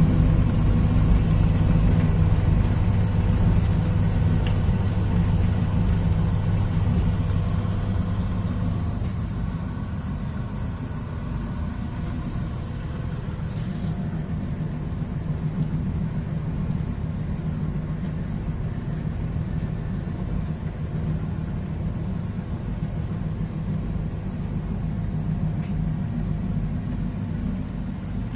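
AEG tumble dryer running with its top cover off: a steady low hum from the drive motor and turning drum.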